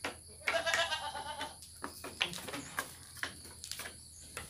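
A goat bleats once, a quavering call about a second long, followed by a few faint scattered knocks.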